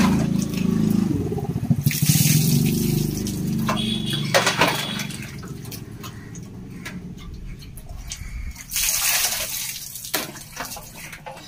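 Water poured from a plastic bucket over a child and splashing onto a tiled floor, in two main pours with running and dripping water between them.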